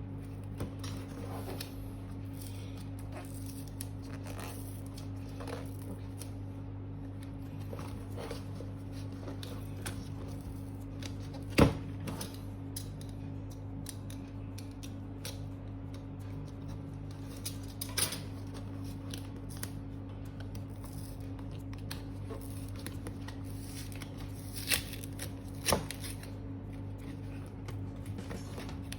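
Cardboard packaging of a wireless microphone kit being handled and opened by hand: scattered small clicks and taps, with a sharp louder knock about a third of the way in and two more a little before the end. A steady low hum runs underneath.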